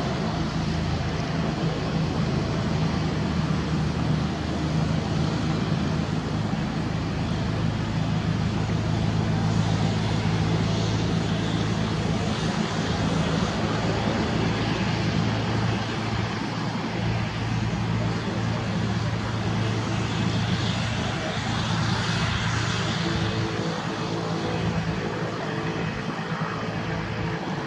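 Cessna Citation X business jet's two rear-mounted Rolls-Royce AE3007 turbofans running steadily at low taxi power as the jet rolls onto the runway and lines up for takeoff.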